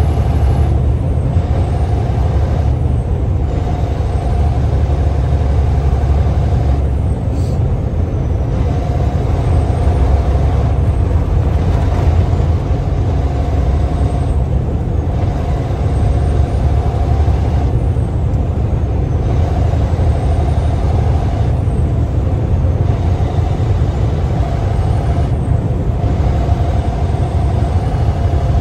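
Road noise heard inside a vehicle's cabin while driving at highway speed: a steady low engine and tyre rumble with a faint, even hum over it.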